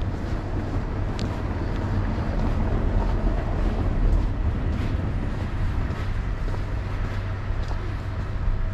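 Outdoor city street ambience: a steady low rumble of traffic with a few faint clicks.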